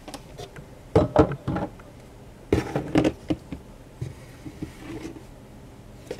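Plastic roll-on deodorant bottles clacking and knocking together as they are handled and set down. There are a few sharp clacks about a second in and a second cluster around two and a half to three seconds in, then light rustling.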